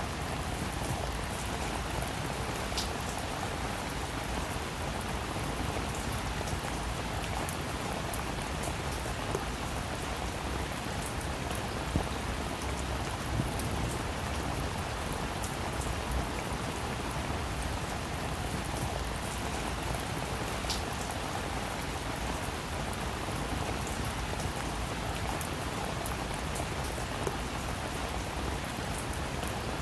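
Steady rainfall, with individual drops pattering and ticking on a surface.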